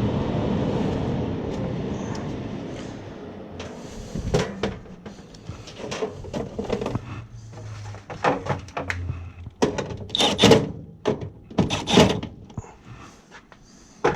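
Knocks and clicks from hands working on equipment, a run of short sharp taps that is loudest about ten and twelve seconds in, after a steady low hum fades away over the first few seconds.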